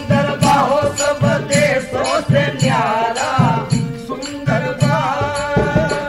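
Jhoomar folk song: a sung 'sundar' at the start, then a wavering melody over a steady drum beat of several strokes a second.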